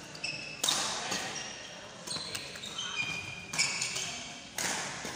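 Badminton rally: several sharp racket-on-shuttlecock hits, each ringing on in the big hall's echo, the loudest about three and a half seconds in. Short high squeaks of shoes on the wooden court come between the hits.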